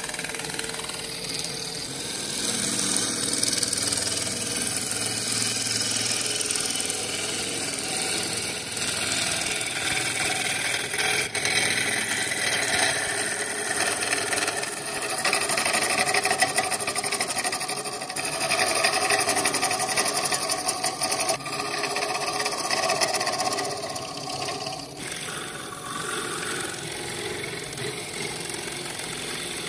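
Gouge cutting a spinning laburnum (golden rain) burl on a wood lathe: a continuous hiss and rasp of the cut over the running lathe, louder and softer as the tool is pushed into the wood and eased off.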